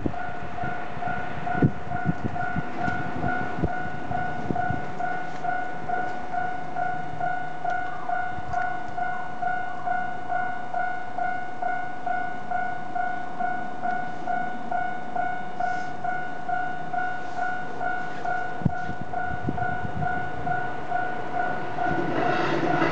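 Japanese railway level-crossing alarm bell ringing steadily at about two strokes a second, a two-tone electronic clang. Train noise fades over the first few seconds, and near the end the rumble of an approaching Keikyu limited express train builds.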